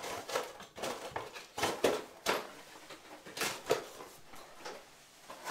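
Toggler drywall anchors and 1/4-20 bolts being handled and put away: an irregular series of short clicks and knocks.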